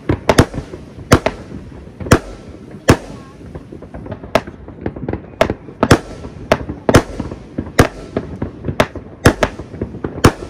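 Fireworks going off: an irregular string of sharp bangs, about two a second, some louder and some fainter, over a steady background haze.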